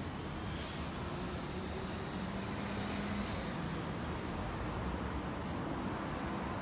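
Steady street background noise of road traffic, a low rumble with a faint hiss that swells about three seconds in.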